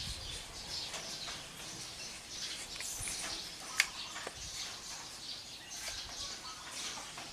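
Faint birds chirping in the background, with a single sharp click about four seconds in.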